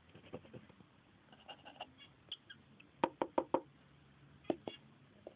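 Rosy-faced lovebird tapping its beak against the wooden nest box: four sharp knocks in quick succession about three seconds in and two more a second and a half later, with a few faint chirps before them.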